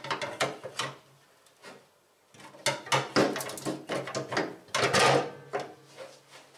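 A brake servo being worked into its mounting holes in a car's sheet-steel firewall, making a string of metallic knocks, clunks and scrapes. The knocks come in two bursts: a short one in the first second and a longer, busier one from about two and a half seconds to near the end.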